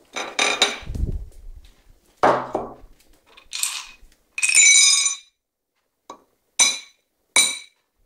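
Dishware clinking and scraping as a ceramic plate is handled: a run of separate knocks, several with a short bright ring, ending in two sharp clinks under a second apart near the end.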